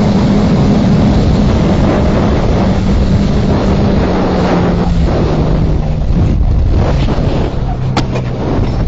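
Heavy wind rush over the camera at highway speed on a sport motorcycle, with the engine's steady drone underneath; the engine note falls in the second half. Near the end come a few sharp knocks and scrapes as the bike goes down and the rider slides along the road.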